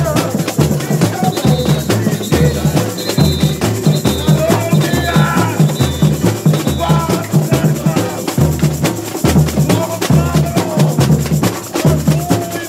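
Samba bateria playing a parade rhythm: surdo bass drums thumping a steady beat about twice a second under dense rattling snare and shaker percussion.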